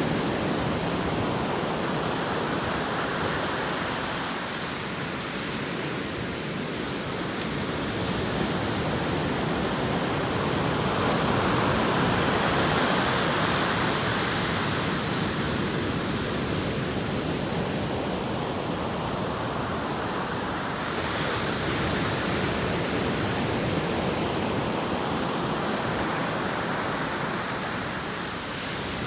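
Atlantic Ocean surf: waves breaking and washing in a continuous rush that slowly swells and falls back every several seconds.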